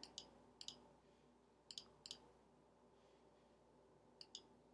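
Faint, scattered clicks of a computer mouse or trackpad being worked, about seven in all, some in quick pairs.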